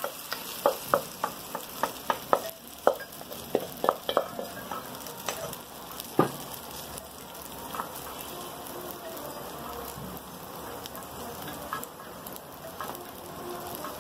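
Egg and potato mixture for a tortilla de patata sizzling in hot oil in a frying pan as it is poured in and spread. Sharp clicks and scrapes come over the first few seconds, then a steady sizzle as a wooden spatula works the mixture.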